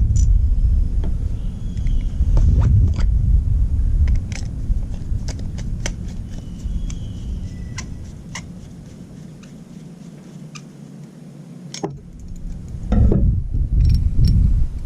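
Light clicks and clinks of small carburetor parts and tools being handled during reassembly, over a low, uneven rumble that dies away for a few seconds after the middle and returns near the end.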